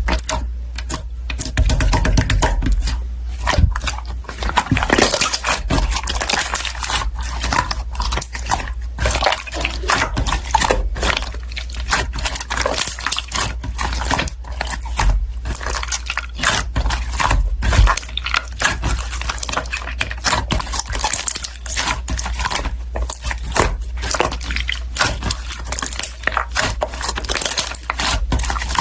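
Hands squishing, pressing and stretching slime, with a dense run of irregular wet clicks and small pops.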